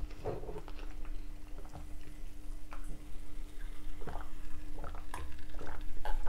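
Mouth sounds of eating and drinking: chewing a mouthful of battered cod, then swallowing gulps of cola from a glass with ice, with short wet clicks and smacks.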